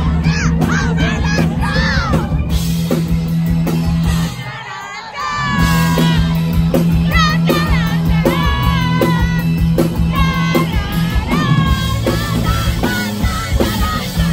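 Live rock band playing on stage: a steady electric bass line under drums and singing. The band drops out for about a second about four seconds in, then comes back in full.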